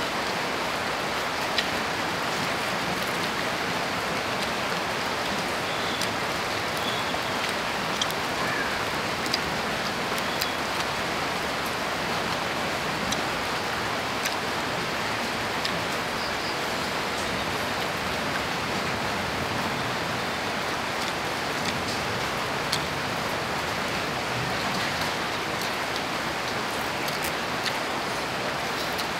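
Steady rain falling, an even unbroken hiss, with a few faint sharp clicks scattered through it.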